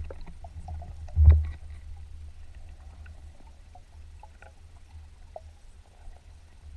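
Underwater sound picked up by a diver's camera: a low rumble of water against the housing with faint scattered clicks, and one short thump just over a second in.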